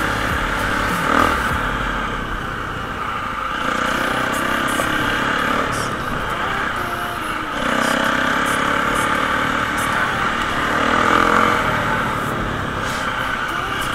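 Enduro dirt bike engine running under way, its revs rising and falling with the throttle in several swells, with scattered light clicks.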